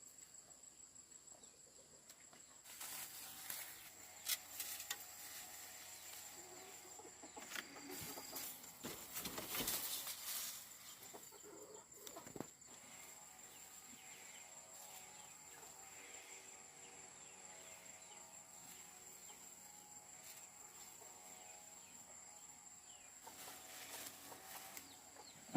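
Chickens clucking over a steady high insect trill, with a few scattered knocks.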